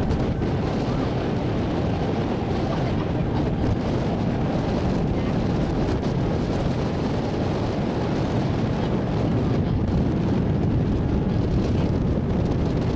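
A small ferry boat under way, its engine and the rush of water running steadily, with wind buffeting the microphone.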